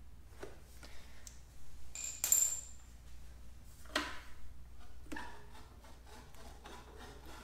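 Slip-on exhaust muffler being twisted and worked off the header pipe: scattered metal clinks and scrapes, the loudest a short bright metallic ring about two seconds in, with another sharp clink about four seconds in.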